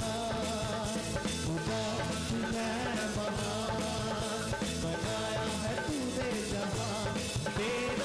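Live Urdu/Hindi worship song: male voices singing over a steady beat from a dholak hand drum, with sustained instrumental accompaniment.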